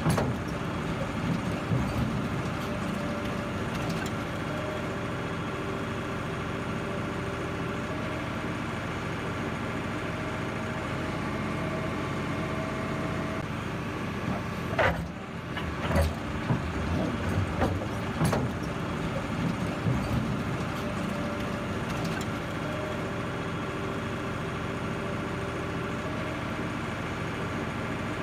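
Heavy diesel engine of a crawler crane running steadily as it works a clamshell grab bucket. A few sharp knocks come about halfway through.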